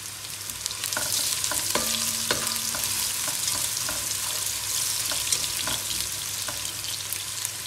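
Sliced onions sizzling as they fry in hot oil and ghee, with a slotted spatula clicking and scraping against the pot as they are stirred.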